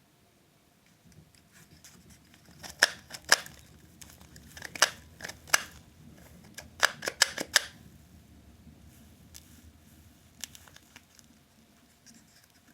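Sharp plastic clicks and taps from a watch winder's sprung watch-holder cushions being handled and pressed, in a quick run from about three to eight seconds in, then a few fainter ones.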